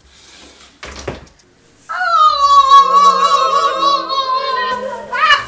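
A person's voice holding one long, high, wavering wail for about three seconds, which sweeps up at the end. A short rustle comes before it, about a second in.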